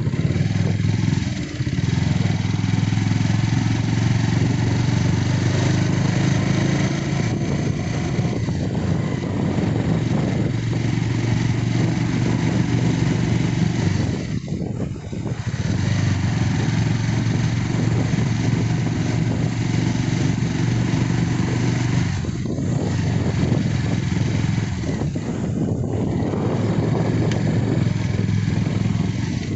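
Motorcycle engine running steadily while riding. The engine note dips briefly three or four times, as the throttle eases.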